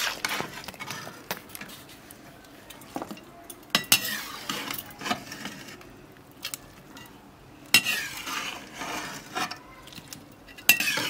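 A spoon clinking and scraping against a cooking pot in scattered, irregular strokes as boiled jackfruit pieces are lifted out of the cooking water.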